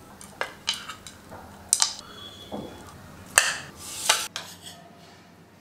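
A steel spoon scooping rice and clinking against the dishes as it is served: about six sharp clinks and knocks, one ringing briefly just before the halfway point, the loudest in the second half.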